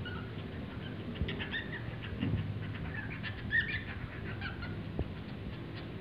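Cockatiel singing: a string of short chirps and whistled notes, busiest in the middle, over a low steady hum.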